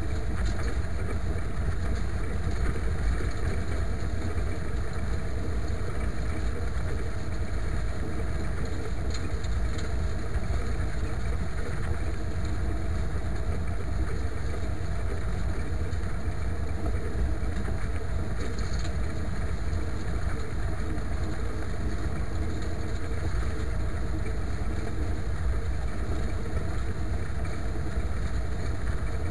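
IMT 539 tractor's three-cylinder diesel engine running steadily, pulling a harrow, with a deep, even rumble.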